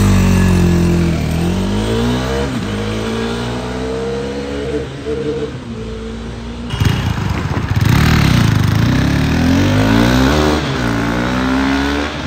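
A single-cylinder motorcycle engine revving and pulling away, its pitch rising and dropping in steps through the gears as it draws off. About seven seconds in, a louder vehicle rushes past close by, its engine pitch sweeping up and down.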